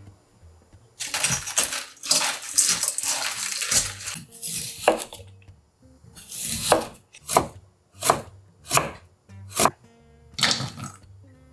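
Coarse salt poured and scattered over napa cabbage leaves in a steel bowl, a dense rustling crackle. Then a chef's knife cuts through Korean radish onto a wooden cutting board, five chops about two-thirds of a second apart, and near the end cubed radish is tipped into a steel bowl. Soft background music plays underneath.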